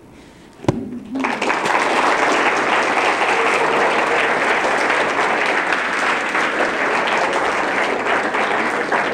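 A single sharp knock, then an audience starts applauding about a second in: dense, steady clapping.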